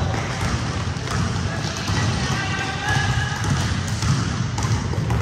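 A basketball being dribbled on a gym floor while players run across the court, a dense patter of low thumps.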